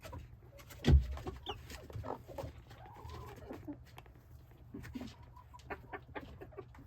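Chickens clucking softly, with one loud thump about a second in and scattered small knocks and rustles.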